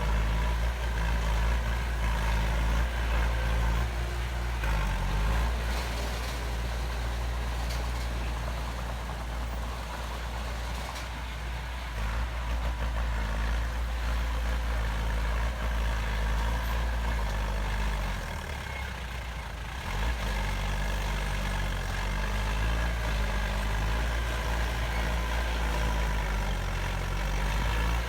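Heavy construction machine's diesel engine running steadily, its engine speed shifting a few times: briefly near the start, with a drop around two-thirds of the way through, and again near the end.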